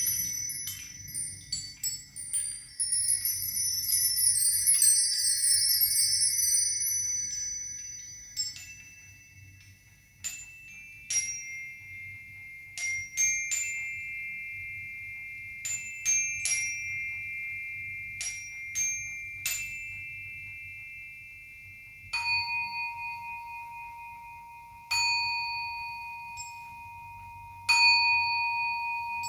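Sound-healing chimes: a cascade of high tinkling chimes for the first several seconds, then single struck metal tones ringing out one after another and overlapping. In the last seven seconds a lower, clear ringing tone is struck three times, about three seconds apart, each time ringing on.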